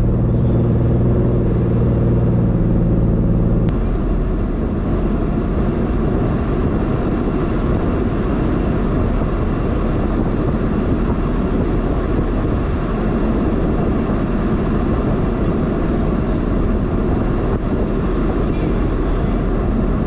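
Vehicle engine idling, a steady low hum. About four seconds in, the hum cuts off abruptly and gives way to an even, rough rumble that carries on steadily.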